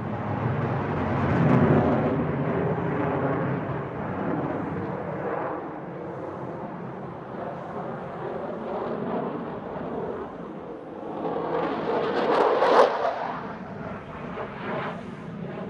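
Sukhoi Su-35 fighter's twin AL-41F1S afterburning turbofans during a flying display: a loud rushing jet noise that swells in the first two seconds, eases, then builds again to its loudest about thirteen seconds in before falling back.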